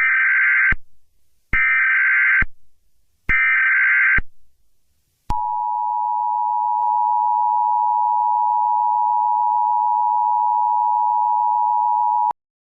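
Emergency Alert System broadcast tones: three one-second bursts of SAME header data, then the steady two-tone attention signal held for about seven seconds before it cuts off suddenly. Together they open an emergency warning broadcast.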